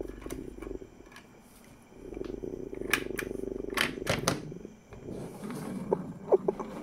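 A wooden toy train engine and the plastic doors of a toy roundhouse being handled, making sharp clicks and knocks. The engine's wheels give a fast, even rattle as it rolls across a tabletop, first from about two seconds in and again more faintly near the end.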